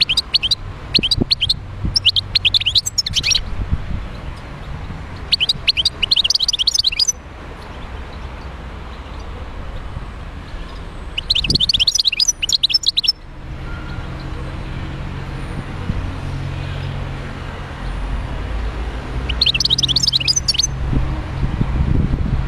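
Wild-caught European goldfinch singing: five bursts of fast, high twittering, each one to two seconds long, with pauses between them, over a steady low rumble.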